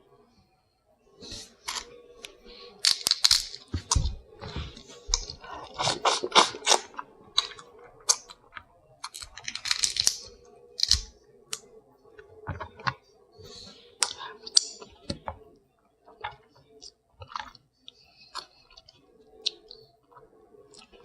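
Hard crab shells being cracked and pulled apart by hand, with irregular sharp cracks and clicks and bouts of chewing. A faint steady hum runs underneath.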